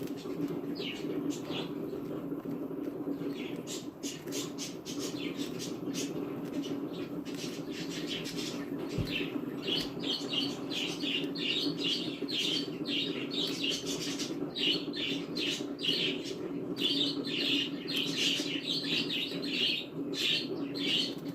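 Cockatiel chirping and chattering softly in short high notes, coming thicker after the first half, with many short clicks. A steady low hum runs underneath.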